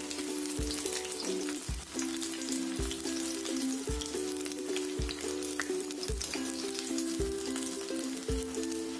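Pakoras deep-frying in hot oil in a kadai, with a steady sizzle and fine crackle. Background music with a steady beat runs underneath.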